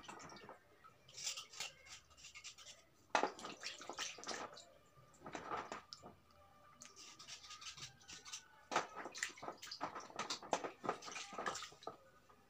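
Hands sloshing and rubbing pieces of slate stone in a basin of cloudy water: irregular splashes and drips, with a sharper splash about three seconds in.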